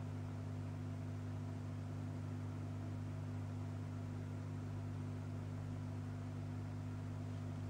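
Steady low electrical hum with a light hiss, unchanging throughout.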